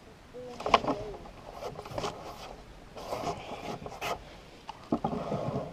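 Light knocks and rubbing sounds inside a canoe that is not being paddled, with one sharp knock about a second in. A brief voice sound comes just before the knock.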